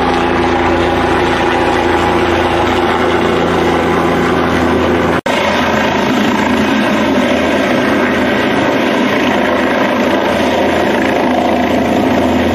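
Light helicopter's rotor and turbine running loud and steady as it comes down to land. The sound drops out for an instant about five seconds in, then carries on with more rushing rotor-wash noise.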